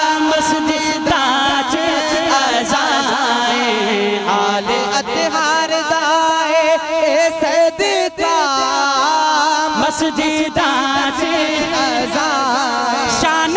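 Devotional music: a wordless vocal melody with many wavering ornaments over a steady low drone.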